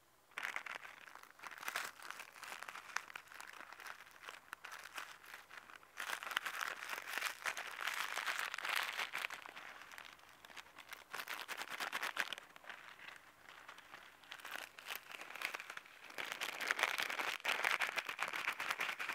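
Plastic cereal packets crinkling while crushed Froot Loops and Frosties are shaken out of them and patter onto asphalt, a dense crackle of crumbs and wrapper rustle that swells louder in stretches.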